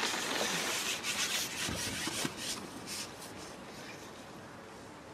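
Long carbon fishing pole being slid back and unshipped, rubbing and scraping with small knocks, dying away after about three seconds.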